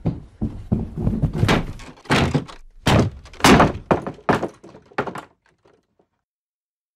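A run of irregular heavy thuds and bangs, loudest in the middle, dying away and stopping about five and a half seconds in.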